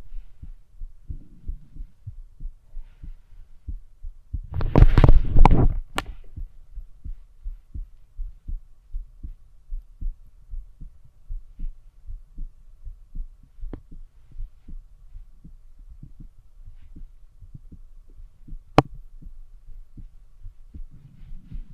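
Heartbeat heard through a stethoscope: steady low thumps about twice a second. About five seconds in, a loud scraping noise lasts a second or so, and a single sharp click comes near the end.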